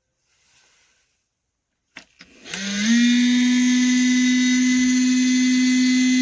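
A few clicks, then the small electric fan motor of a plug-in wall space heater starts up: its hum rises quickly in pitch and settles into a loud, steady buzzing drone.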